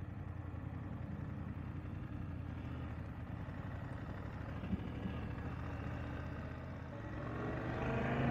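BMW F 750 GS parallel-twin engine running steadily at low speed through a turn, then pulling harder as the bike accelerates, growing louder and rising in pitch about seven seconds in.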